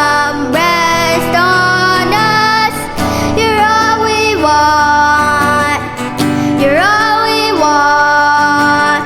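Worship song: a woman's voice sings long held notes, sliding up into several of them, over a steady instrumental accompaniment.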